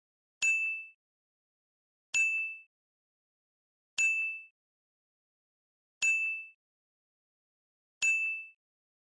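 A bright bell-like ding struck five times, about every two seconds, each ring dying away within half a second. It marks each repetition of a straight leg raise being counted out.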